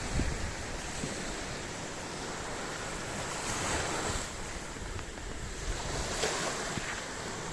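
Sea waves washing onto the shore, with a steady rush of surf that swells a couple of times. Wind rumbles against the microphone throughout.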